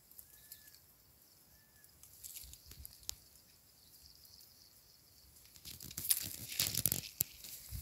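Quiet garden air with two faint short chirps, then about five and a half seconds in, a dense crackling and rustling starts: dry leaves and plant leaves crunching and brushing close to the microphone.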